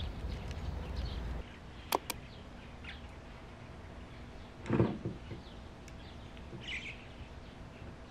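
Outdoor ambience with birds chirping now and then. A low wind rumble cuts off about a second and a half in, two sharp clicks follow, and near the middle comes a knock of plastic pesticide bottles being handled on a wooden railing.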